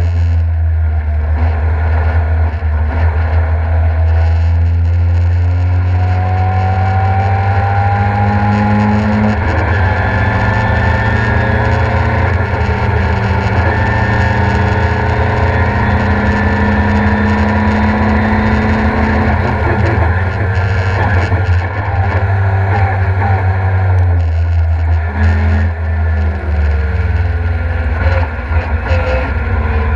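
Ford Escort Mk2's engine heard from inside the cabin, running hard on track, its pitch climbing under acceleration and dropping back several times with gear changes and lifts.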